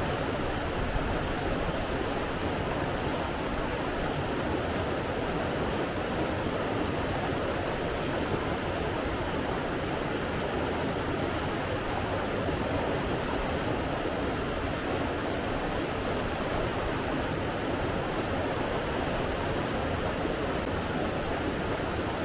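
Steady, even rush of flowing water, without surges or distinct splashes.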